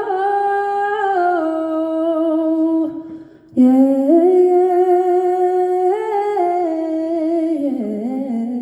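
A singer humming long wordless notes into a microphone, stepping between pitches, with a short break for breath about three seconds in: a vocal check during a band soundcheck.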